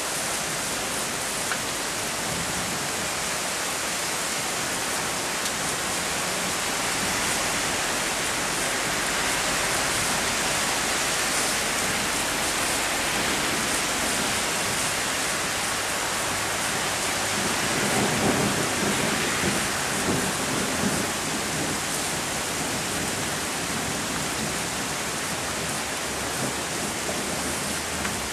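Heavy rain falling steadily during a thunderstorm, with a roll of thunder swelling about two-thirds of the way through.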